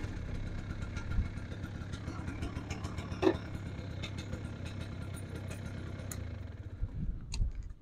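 Motorcycle engine running as the bike pulls away from the camera and climbs a slope, a steady low rumble with small ticks and clatter, dying away near the end.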